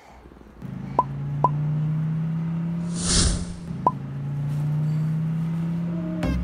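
Synthesized retro video-game style sound effects: a steady low electronic buzz like an 8-bit car engine, broken by three short beeps and a hissing whoosh about three seconds in. Electronic music starts just before the end.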